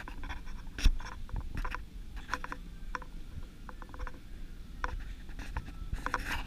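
Irregular clicks, taps and scrapes over a low rumble, with one sharp knock about a second in: handling and movement noise from a camera carried by someone walking with a wheeled suitcase across a tiled floor.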